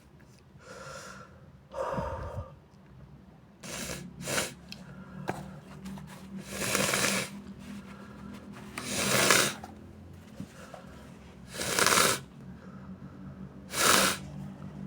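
A series of short, loud nasal bursts from a nose blocked up with sinusitis: a few faint ones first, then four strong ones about two to three seconds apart in the second half.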